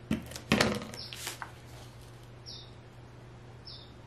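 A few knocks and rustles of card-stock pieces being set down on the work surface in the first second or so, then a bird chirping outside: two short high chirps, each falling in pitch.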